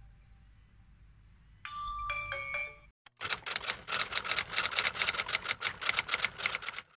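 A short chime of a few bell-like notes, then a typewriter sound effect: rapid keystroke clicks, about six a second, lasting nearly four seconds.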